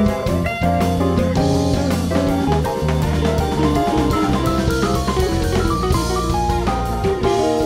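Live rock band playing an instrumental jam: electric guitars over bass and a drum kit keeping a steady beat.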